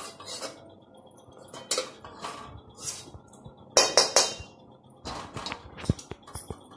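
A metal spoon scraping and clinking against a metal pan in a series of short, uneven bursts while turmeric root pieces are stirred in hot oil; the loudest clatter comes about four seconds in.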